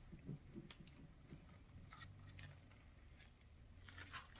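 Near silence, with a few faint, scattered clicks and a faint low hum in the second half.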